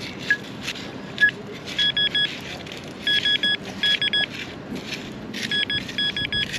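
Handheld metal-detecting pinpointer beeping in quick runs of short high beeps as it is probed over a buried target, with scraping noises between the beeps.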